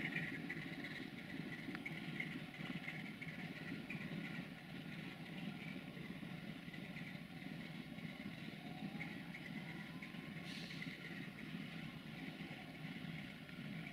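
Diesel railway engine idling steadily, with a short hiss about ten and a half seconds in.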